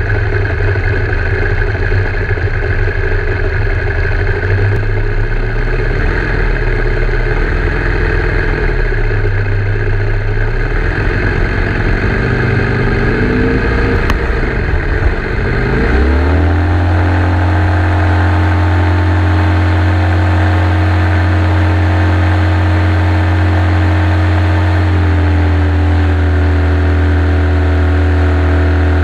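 Evolution 7-77 radial engine of a model Ag-Cat, heard from a camera mounted on the plane. It runs low and uneven with small throttle changes, then about halfway through the revs climb to a steady full-throttle run for the takeoff.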